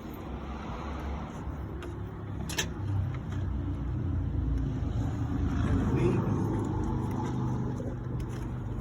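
A motor vehicle engine running nearby as a steady low hum, growing louder through the middle and easing off toward the end. A single sharp click sounds about two and a half seconds in.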